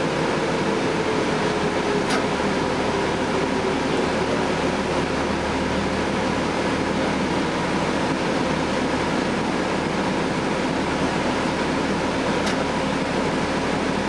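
Steady interior running noise of a 2011 Gillig Advantage transit bus under way: its Cummins ISL9 inline-six diesel and driveline droning steadily, mixed with the constant hum of the ventilation fans. A faint tick sounds twice.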